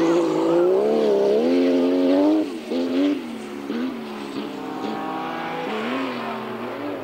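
Rallycross car engines revving hard, the note climbing and dropping repeatedly as the throttle is worked. Loudest for the first couple of seconds, then suddenly fainter.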